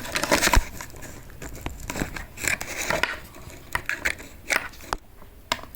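Handling noise as a portable hard drive's cable is plugged into a USB-C docking hub: scattered clicks, taps and rustles.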